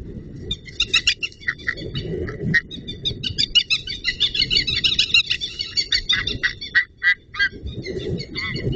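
White-tailed eagles calling on the nest: a long run of rapid, high-pitched repeated notes that grows denser in the middle, then thins to a few separate calls near the end, over a low rumbling noise.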